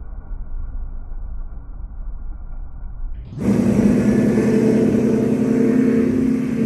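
A muffled low rumble of boat engine and water, then about three seconds in a louder steady drone of a Yamaha 225 hp V6 outboard running at constant speed, with water rushing and wind.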